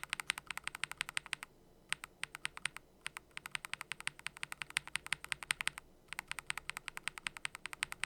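Typing on a mechanical keyboard fitted with Gateron magnetic (Hall-effect) switches: quick runs of keystroke clacks, about ten a second, with brief pauses about a second and a half in and near six seconds in.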